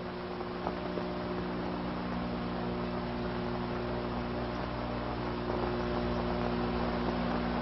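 Steady electrical mains hum with hiss from an old film soundtrack, with no distinct aircraft sound.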